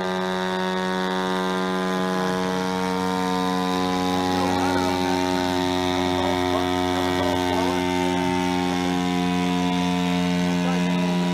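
Engine and propeller of a full-size radio-controlled Demoiselle replica aircraft in flight overhead, a steady, even-pitched drone. It grows slightly louder about four seconds in as the plane comes closer.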